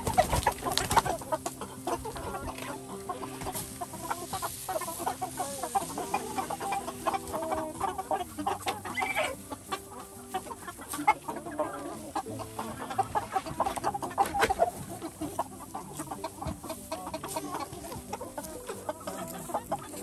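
A flock of Freedom Ranger meat chickens clucking and chattering, many birds at once, with frequent overlapping calls and a few sharper, louder ones.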